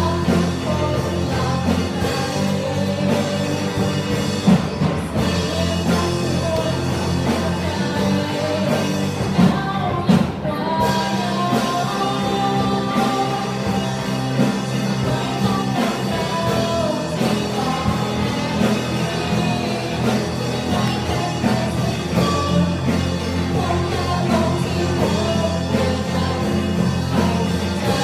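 Live band music: a girl singing through a microphone over amplified electric guitars.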